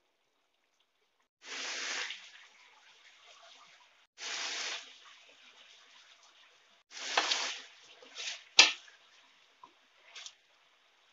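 Chicken simmering in sauce in a wok: three short bursts of sizzling and bubbling a couple of seconds apart, with a faint steady simmer between them. About two-thirds of the way in comes a sharp knock of the spatula against the wok, with a few lighter taps around it.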